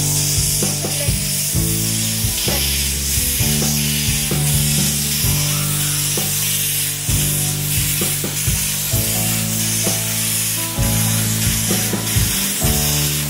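Narrow-gauge steam locomotive venting steam from its cylinder drain cocks with a steady hiss, over background music.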